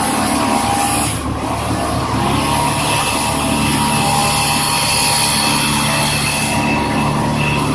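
Heavy machinery engine running steadily under load, with a short dip in level about a second in.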